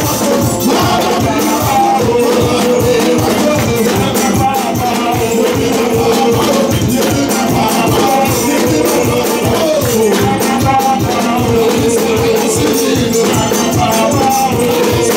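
Upbeat praise-and-worship music with a steady, fast beat and a held melody line over it.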